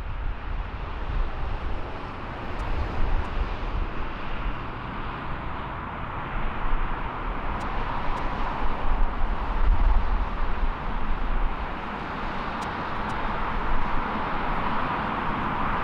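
Jet airliner engines at an airport: a steady rumble with a rushing hiss that grows louder toward the end.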